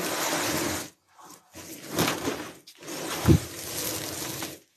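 Large bamboo slat mat being swung and unrolled across a concrete floor: three bursts of rustling and clattering slats, with a thump a little past three seconds in.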